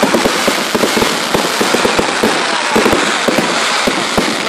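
Fireworks going off overhead: a dense, continuous run of sharp cracks and pops.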